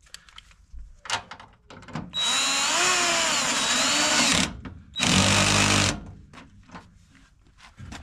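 Parkside cordless drill-driver driving in a front-end mounting bolt: one run of about two and a half seconds with the motor's pitch wavering under load, then a shorter burst of about a second.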